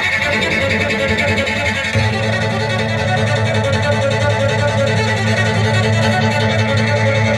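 Instrumental music with no singing; a sustained low note comes in about two seconds in.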